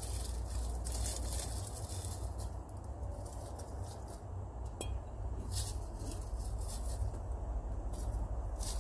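Small clinks and rustles of glass jars and a plastic bowl being handled, scattered short clicks over a steady low rumble.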